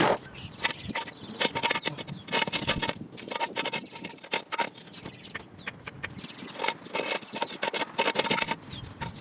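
Metal hand tools clicking and clinking against metal in repeated bursts of rapid clicks, during work on the Mazdaspeed 6 engine to remove its cylinder head.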